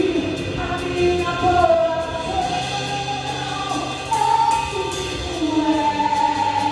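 Gospel song with sustained, gliding sung melody over soft accompaniment, with no full drum beat.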